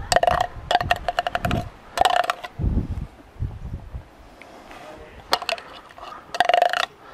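Metal spoon clinking rapidly against a container, in about five short runs of sharp ringing clicks, with a few low thumps between them.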